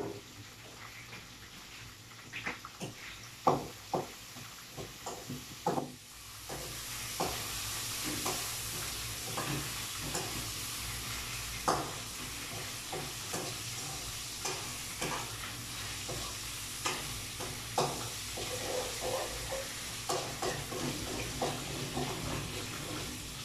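Food stir-frying in a metal wok on a gas burner: a utensil scrapes and clicks against the pan while the food sizzles. The first few seconds hold only scattered clicks and knocks; the sizzling swells about six seconds in and then holds steady, with the clicks of stirring running on over it.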